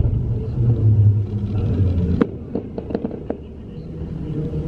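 Fireworks going off overhead: one sharp bang about two seconds in, followed by a quick run of about five cracking pops, over a steady low rumble.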